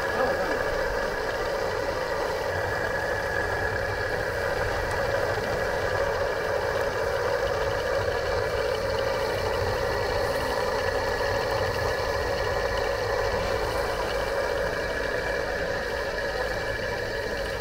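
A steady mechanical hum, like a motor running, with several constant tones over a low rumble and no break.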